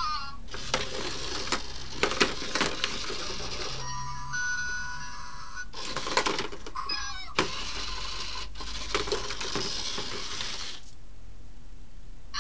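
ZhuZhu Pets robotic hamster toy running through its plastic play track: its small motor whirs in stretches, with clicks and knocks as it bumps the track walls. About four seconds in it stops and gives a few steady electronic beeps, then later short chirping squeaks, and the whir drops out near the end.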